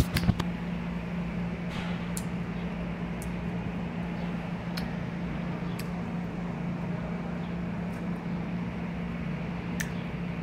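Steady low mechanical hum, with a couple of sharp clicks at the very start and a few faint ticks later; no meowing.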